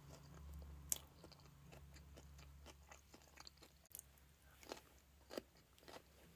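Faint close-up chewing of a mouthful of battered fried food, with scattered small crunches and mouth clicks; a sharper click comes about a second in.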